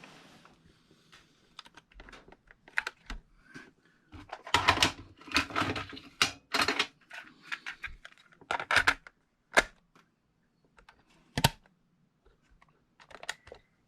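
Sharp plastic clicks and clatter from a Sony WA-55 cassette recorder: the cassette is handled and loaded, and the transport keys are pressed. The busiest stretch is in the middle, with one sharp click after it.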